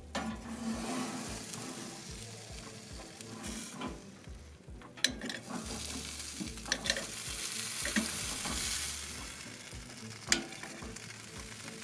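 Sauce-glazed pork ribs sizzling on the hot smoker grate, a steady hiss broken by a few sharp clicks.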